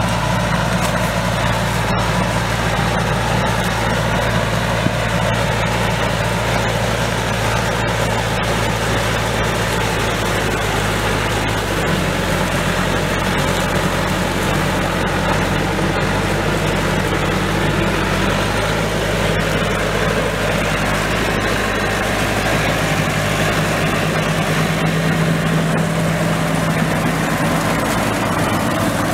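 Tractor diesel engine running steadily under load while driving a mounted corn picker through standing maize. The engine note changes to a different steady pitch about twelve seconds in.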